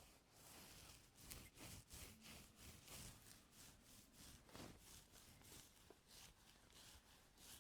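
Ear-cleaning tool scraping and rubbing inside an ear canal close to the microphone: faint, irregular scratchy strokes, a few a second.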